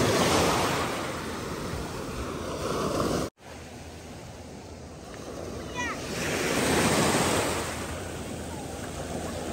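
Sea waves washing onto a stony beach, swelling and fading twice, with a momentary dropout in the sound about a third of the way in.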